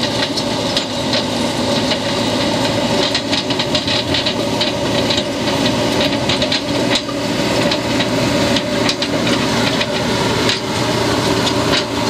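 Backhoe loader's diesel engine running steadily under load as the front bucket pushes soil and brush along a dirt road, with frequent clatter and scraping.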